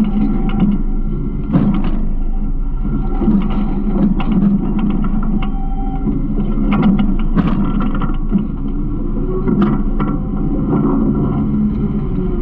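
Garbage truck's engine running steadily, with scattered knocks and rattles from the truck's body and hopper.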